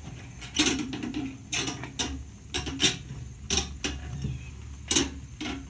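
Scattered clicks and knocks, about ten at uneven intervals, as the parts of a 2007 Ford Focus fuel pump module are handled and fitted together.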